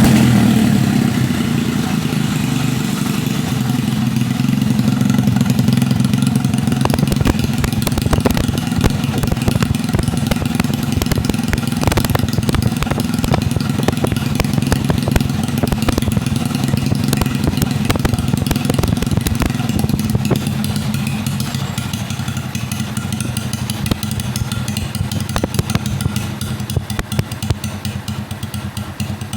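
Yamaha XTZ motorcycle engine, fitted with a 176 engine, running at a steady idle with a rumbling exhaust.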